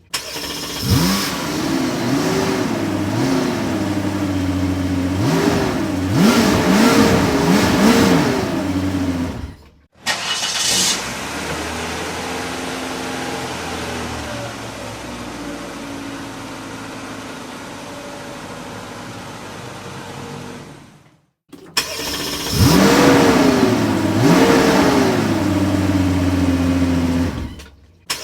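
Car engine revving again and again, its pitch climbing and falling with each blip of the throttle. About ten seconds in, after a brief break, the engine runs steadier and quieter for about ten seconds. After another break, the revving returns.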